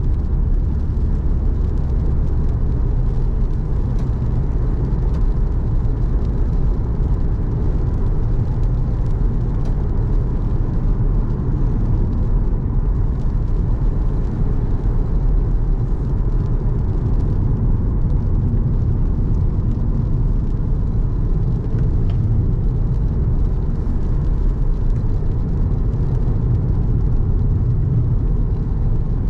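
Car driving in the rain: a steady low rumble of engine and road.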